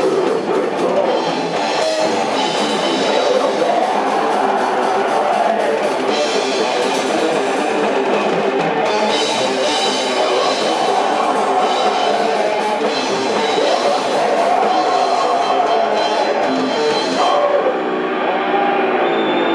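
Rock music with a drum kit and guitar, playing steadily; the sound changes about 17 seconds in.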